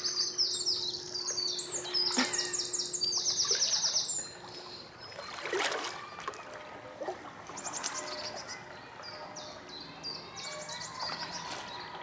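A songbird sings rapid, high trilled phrases, several in a row over the first four seconds and more again later. About halfway through a canoe paddle splashes once in the water close by.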